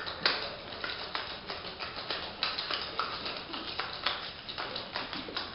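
Cocktail shaker being shaken hard: ice rattling and knocking inside the metal tins in a fast, even rhythm of several knocks a second.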